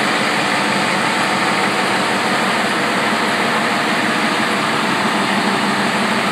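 Turbocharged 7.3 L IDI V8 diesel of a 1994 Ford F-250 running steadily.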